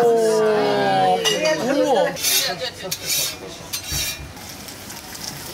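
Metal spoon clinking and scraping in a ceramic bowl as raw okonomiyaki ingredients are stirred, with a drawn-out exclaimed "ooh" and a "wow" in the first two seconds.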